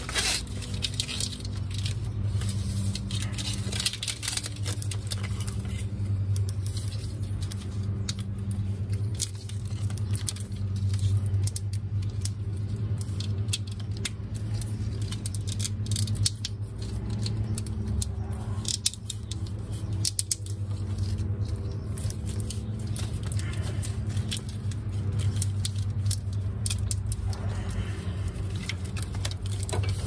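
Corrugated plastic split wire loom being handled and worked over engine harness wires: irregular crinkling, clicks and scrapes, over a steady low hum.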